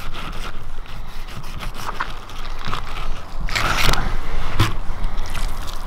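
Knife blade scraping and crackling along a king salmon's backbone and ribs as the fillet is cut free, with a louder stretch of scraping about three and a half seconds in.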